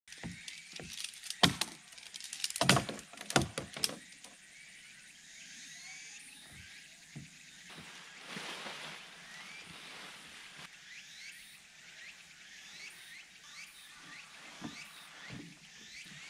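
A few sharp knocks and thumps in the first four seconds, then a steady outdoor background of faint high chirps.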